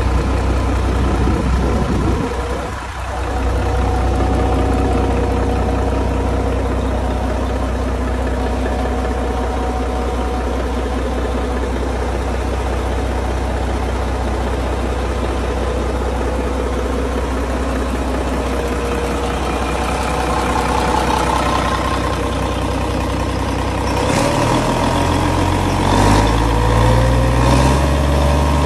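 Yanmar marine diesel engine running steadily at idle, then revved up near the end, its pitch rising in steps.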